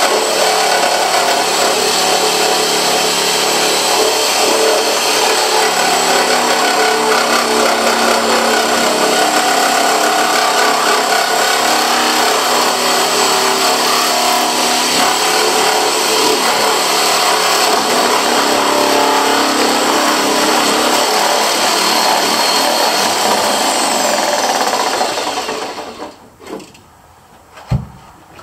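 Electric power tool running steadily at full speed, then winding down near the end, followed by a couple of light knocks.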